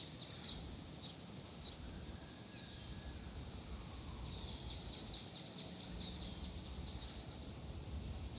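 Small birds chirping in short high notes, a few scattered at first and then a quick run of chirps from about halfway through, over a steady low rumble.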